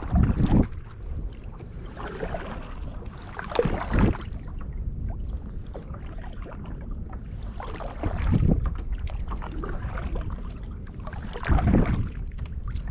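Kayak paddle strokes through water, a swishing splash about every four seconds, over a steady low rumble of wind on the microphone.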